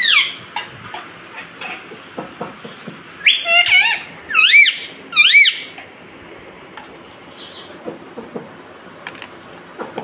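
Rose-ringed (Indian ringneck) parakeet calling: a short call at the start, then a loud run of about four screeches in quick succession a few seconds in, each rising and falling in pitch. Softer clicks follow.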